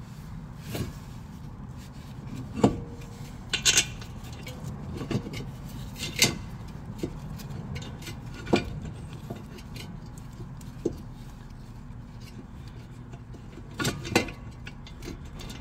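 Front brake caliper of a Toyota RAV4 being worked back onto its pads and rotor: scattered metallic clinks and knocks every second or two as it is seated and lined up with its bolt holes, over a steady low hum.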